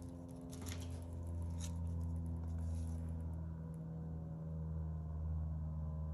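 A steady low hum, with a few faint light clicks and taps in the first couple of seconds.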